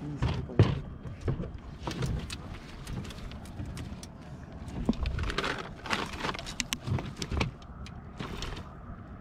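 Irregular knocks, thumps and clatter in a small fishing boat, over a steady low rumble.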